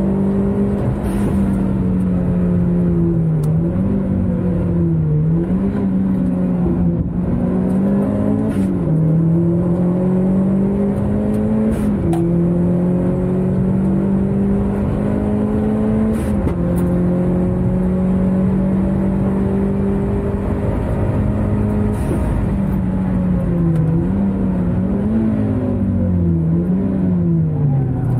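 Car engine under hard acceleration on a race track, heard from inside the cabin. The engine note climbs slowly through each long pull and drops suddenly at the upshifts. Near the end it falls and rises quickly several times as the car slows into a corner.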